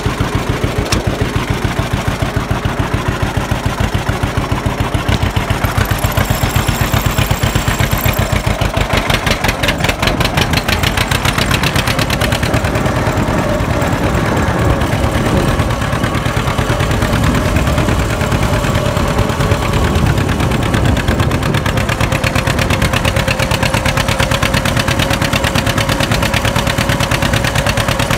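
John Deere B's two-cylinder engine popping steadily as the tractor drives along. Its evenly spaced exhaust beats quicken about eight seconds in as the engine speeds up.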